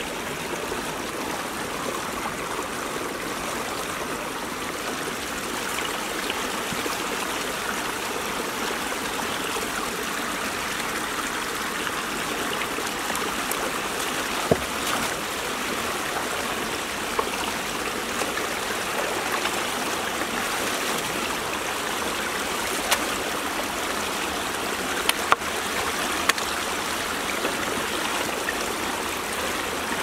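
Water rushing steadily in a field drainage ditch running high. A few short sharp knocks sound over it, one about halfway through and several more near the end.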